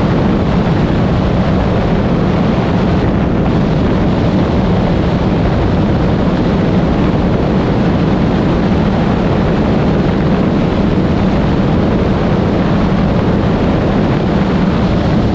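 Cessna 185's piston engine and propeller droning steadily in cruise, with heavy wind rush over a microphone mounted outside the airframe.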